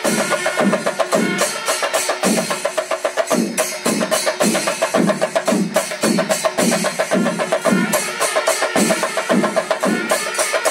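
Chenda melam: a large ensemble of chenda drums beating fast, dense strokes in a steady rhythm, with ilathalam hand cymbals clashing along.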